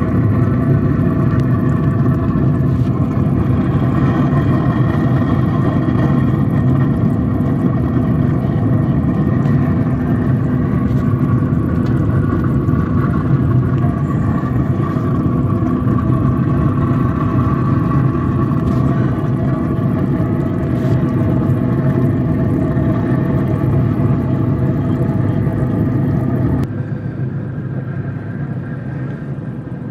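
Traeger pellet smoker's fan running: a steady mechanical hum with a low rumble that holds one pitch throughout and becomes quieter near the end.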